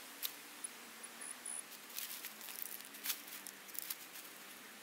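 Gloved hands digging through loose soil and dry leaf litter: scattered crunches and scrapes. A few faint, short high-pitched beeps during the first second or so.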